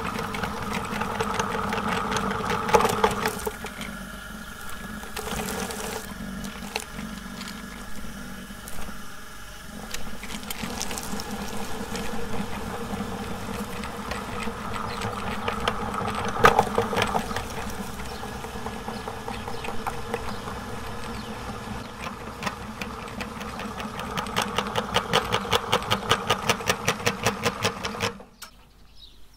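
Meat grinder running while grinding soap: a steady mechanical whir with a fast run of even clicks near the end. It stops abruptly about a second before the end.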